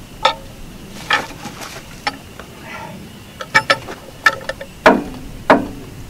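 Sharp metal clanks and knocks of a cant hook being handled and its steel hook set against a log on the sawmill bed, about seven knocks at uneven spacing.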